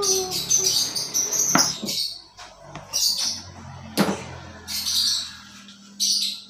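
Birds chirping in bursts in the background, with two sharp knocks of a kitchen knife on a plastic cutting board as shallots are sliced, one about a second and a half in and one about four seconds in.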